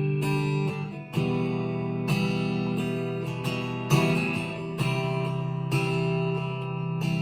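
Harley Benton TE-52 Telecaster-style electric guitar played fingerstyle through a Fender Mustang LT25 amp on a clean setting: plucked chords ringing out, a new one about every second, with a short dip just before a fresh chord about a second in.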